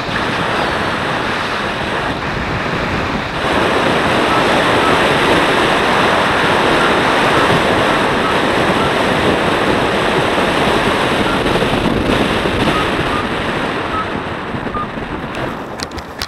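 Airflow buffeting the microphone of a paraglider pilot's point-of-view camera in flight: a steady rushing noise that gets louder about three seconds in and eases off near the end as the glider comes in to land. Faint short high beeps sound now and then.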